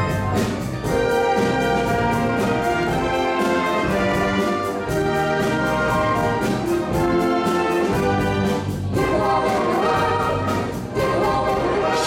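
Live orchestra playing the closing bars of an upbeat soul tune over a steady beat. The music ends on a final cut-off near the end.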